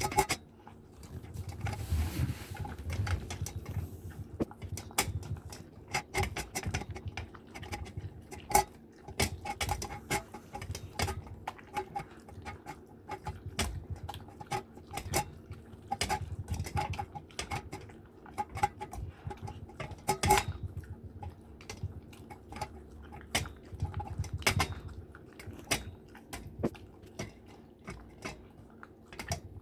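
A borzoi eating from a food bowl: irregular clicks and knocks of food and teeth against the bowl, with crunching.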